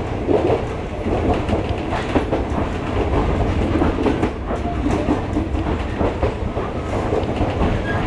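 Small second-hand ex-Ginza Line electric railcar running along single track, heard from inside the cab: a steady low rumble with wheels clacking now and then over the rail joints.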